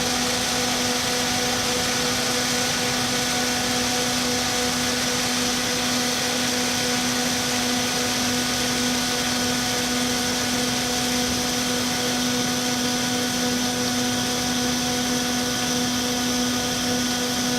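Snowkey industrial tube ice machine running under test: a steady machine hum with a constant pitched tone over an even hiss, unchanging throughout.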